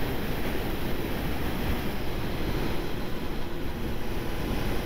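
Steady wind rush on the camera's microphone while riding a 1999 Honda CBR900RR FireBlade at road speed, with the bike's inline-four engine and tyre noise running underneath.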